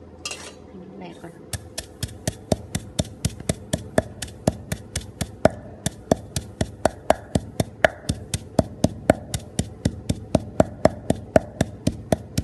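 Pestle pounding small dry seeds in a mortar to grind them down, a steady run of knocks about four a second, starting about a second and a half in.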